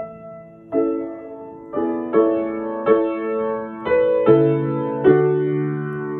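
Acoustic piano played with both hands: a series of chords, struck roughly every three quarters of a second, each left ringing into the next.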